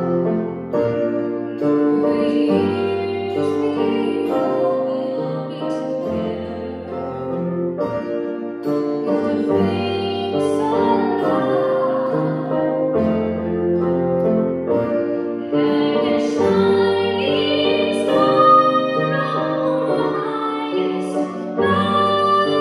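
A woman singing a carol into a microphone over a keyboard accompaniment that holds steady low notes.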